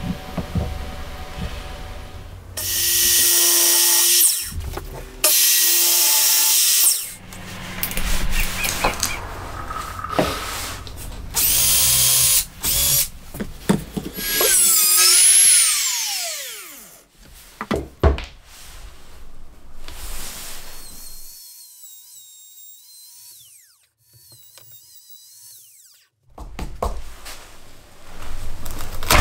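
Handheld trim router run in several short bursts, cutting into wood; about halfway through it is switched off and its motor whines down. A few sharp knocks follow, then only faint handling sounds.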